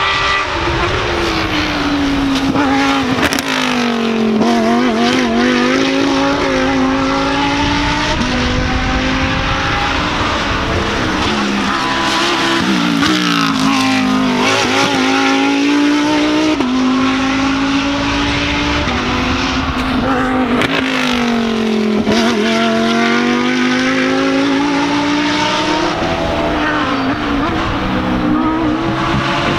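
Lamborghini Huracán GT3 race cars' V10 engines, one car after another: the engine pitch falls as each car slows, then climbs as it accelerates away, several times over.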